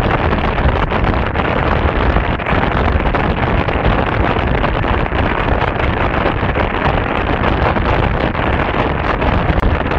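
Steady wind buffeting the microphone of a camera on a moving scooter, a loud rush heaviest in the low end.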